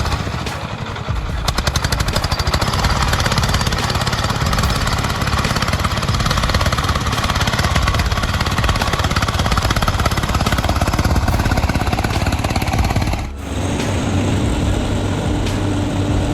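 Truck engine running with a rapid, pounding chug, the beat coming many times a second. About 13 seconds in it cuts abruptly to a steadier engine sound with a held low hum.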